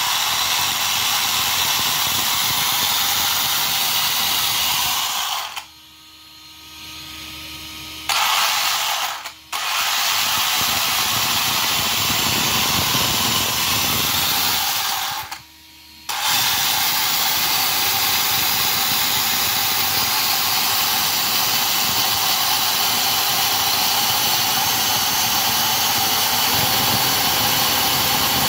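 Redcat Shredder RC truck's electric drive motor and gears running at full throttle on a 3S battery, spinning the second motor as an alternator: a loud, noisy, steady whir. It drops away for about two seconds around six seconds in, for a moment near ten seconds, and for under a second around fifteen seconds in.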